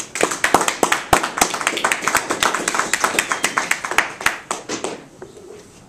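A group of people clapping, dense and irregular, thinning out and dying away about five seconds in.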